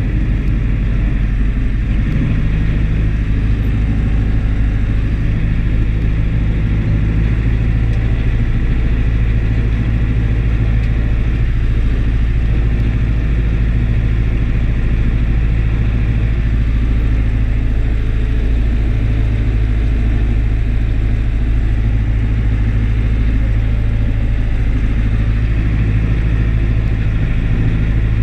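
Deutz DX 4.70 tractor's air-cooled diesel engine running steadily, heard from inside the cab.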